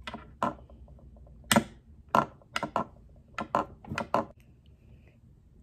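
Sharp plastic clicks and snaps from a small Kinder Joy toy launcher being fitted together and handled on a tabletop, about ten in the first four seconds, one a little after a second and a half the loudest.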